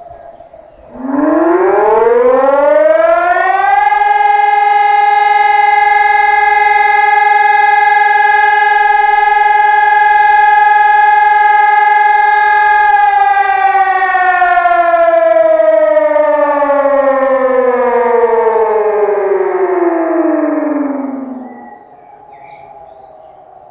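Helin HES 1200 siren sounding its quarterly test. It comes up about a second in with a rising pitch, holds one steady loud tone for about nine seconds, then glides down in pitch and cuts off about three quarters of the way through.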